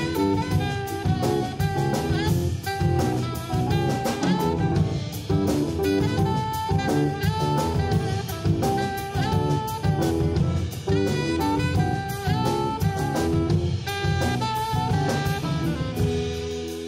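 Live jazz: a tenor saxophone solos in fast runs over busy drum kit playing. Near the end the drums fall away, leaving held saxophone notes.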